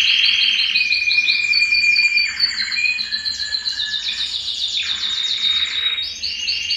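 Belgian canary singing a continuous song of fast trills of repeated notes, changing pitch every second or so, with some held whistle-like tones.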